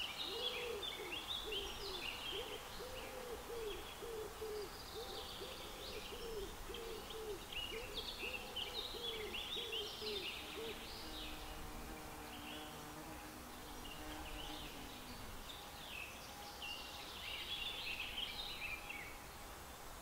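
Songbirds singing. For about the first ten seconds a low hooting call repeats about twice a second, then a fainter, lower series follows, over a faint steady outdoor rumble.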